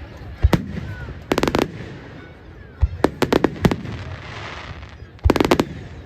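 Fireworks display: a single bang, then volleys of rapid crackling pops, several shots in quick succession each time, in three bursts.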